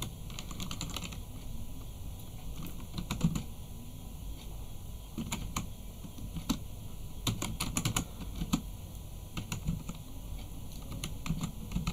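Computer keyboard being typed on slowly and unevenly: single key clicks and short runs of keystrokes with pauses between them, over a faint steady low hum.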